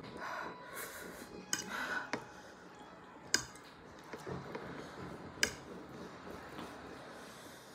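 Metal fork scraping and clinking on a plate of noodles, with four sharp clinks spread through.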